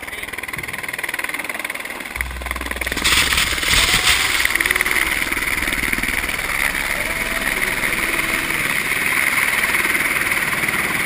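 Helicopter landing and running close by: a steady turbine whine and rotor noise build up. A sudden blast of rotor-downwash wind hits the microphone about three seconds in.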